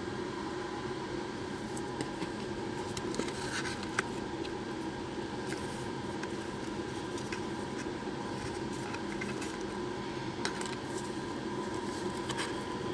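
Light clicks and rustles of cardboard and paper as an iPhone box, its paper insert and the coiled charging cable are handled, over a steady background hum. The sharpest clicks come about two seconds in, around four seconds in, and twice near the end.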